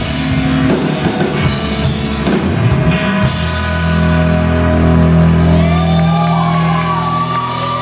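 Live rock trio of electric guitar, bass guitar and drums playing loud. About three seconds in, the drums and cymbals stop, leaving a held low bass note under high, sliding guitar notes that bend up and down in pitch.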